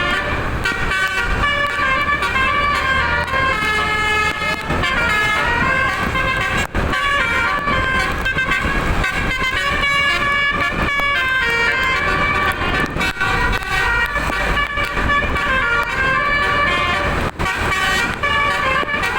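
Telolet bus horn: several electric horn trumpets playing a fast stepping melody, with a low engine rumble beneath. The sound breaks off for an instant twice.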